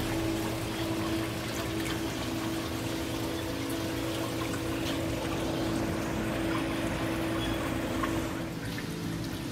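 Water trickling and splashing in the filtration of a bank of store aquarium tanks, with a steady hum underneath that drops away near the end.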